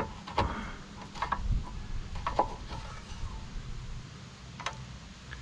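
A few light plastic clicks and knocks as a lawn mower's dipstick cap is turned in its filler tube and the dipstick is drawn out to check the oil level.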